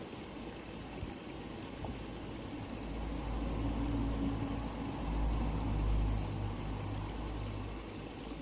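A low engine hum that grows louder a few seconds in, peaks, then eases off toward the end.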